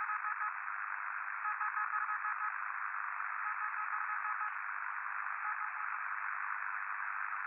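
Steady, thin static hiss, narrowed like a radio or telephone line, with faint tones coming and going beneath it.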